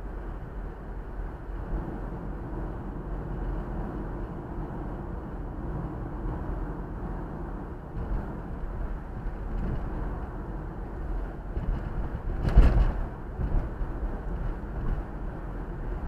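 Steady road noise of a car being driven: tyre and engine rumble. A single sharp thump comes about three-quarters of the way through.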